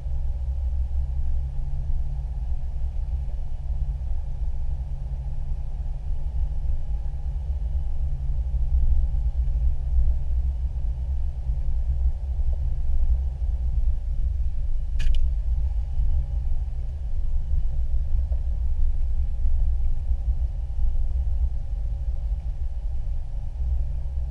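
Steady low rumble of a 4x4 driving slowly along a dirt trail, heard from inside the cab: engine and tyre noise. A single sharp click about fifteen seconds in.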